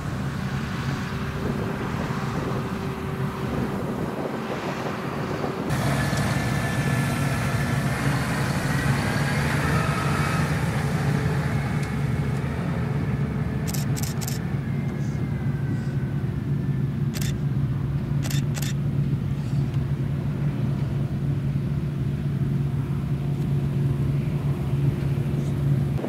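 New Holland CX8070 combine harvester running steadily under load while cutting barley: a constant low engine drone with machinery noise. It gets louder about six seconds in.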